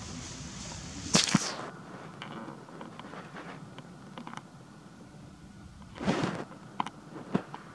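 Dry leaf litter rustling and crackling in two short bursts, about a second in and again about six seconds in, with a few lighter clicks between and after.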